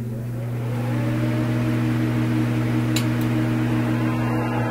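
A steady low hum made of a few held tones, swelling slightly, with a short click about three seconds in.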